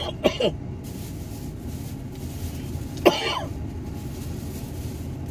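A man coughs twice, briefly, a small cough about a third of a second in and a louder one about three seconds in, each with a falling pitch, over a steady low hum.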